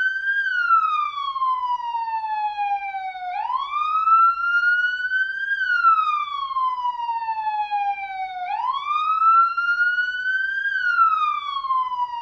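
Police siren sounding a slow wail: the tone rises over about two seconds, then falls more slowly over about three, and repeats. Two and a half cycles are heard.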